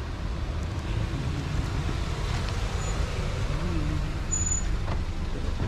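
A car drives slowly up and pulls to a stop close by, with a steady low rumble.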